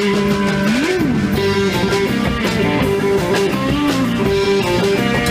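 Instrumental surf rock: an electric guitar plays a melody over drums and bass, with one note sliding up and back down about a second in.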